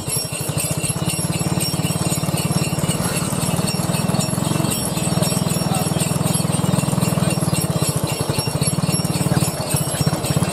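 A horse's hooves clip-clopping at a steady trot on a paved road as it pulls a two-wheeled cart, over a steady low rumble.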